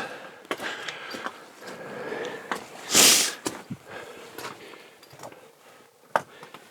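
A person's short, loud sniff about three seconds in, among scattered light scuffs and clicks of movement, with a sharp click near the end.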